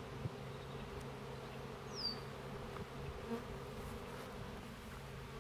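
Russian honeybees buzzing steadily in a swarm around a newly installed hive, with a short high falling chirp about two seconds in.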